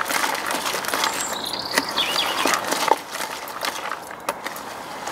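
A hand stirring a damp carp groundbait mix of crushed boilies and bait liquid in a bucket: a continuous rustling crackle of small clicks and rattles as the bait is turned over.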